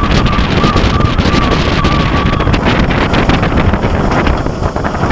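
Wind buffeting the microphone over the rumble and rapid clatter of an inverted roller coaster train at speed, with a steady high tone that stops about halfway through.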